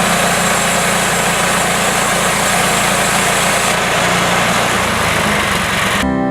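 Small gasoline engine running steadily, cutting off abruptly near the end.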